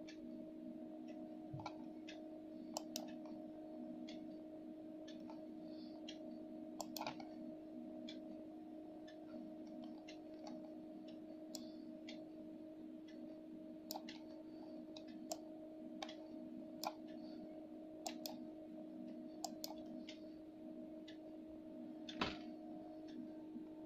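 Faint computer mouse clicks at irregular intervals, one sharper click near the end, over a steady low hum.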